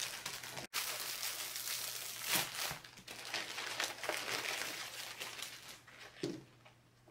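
Clear plastic packaging bag crinkling and rustling as hands open it and pull out the kit's sheets and cards. It quietens near the end.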